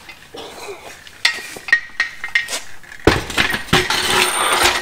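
Steel engine hoist clanking and rattling as it is hauled out of a car's hatch and set down on concrete: a few separate metal knocks, a loud clank about three seconds in, then a stretch of scraping and rattling metal.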